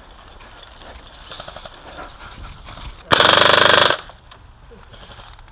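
Airsoft gun firing one full-auto burst of a little under a second, about three seconds in, a rapid even rattle of shots; faint scattered clicks and pops before it.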